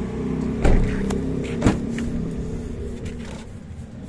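A Toyota Vitz's rear door being opened: two sharp clicks of the handle and latch about a second apart, over a steady low hum.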